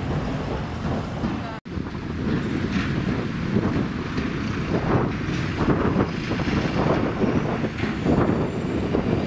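Wind buffeting the microphone in uneven gusts, broken by a brief dropout about a second and a half in.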